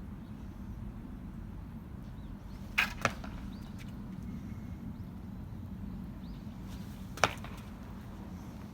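Sharp footfalls of an athlete on a track during a hurdle drill: two quick strikes a quarter-second apart about three seconds in, and another about seven seconds in, over steady low outdoor background noise.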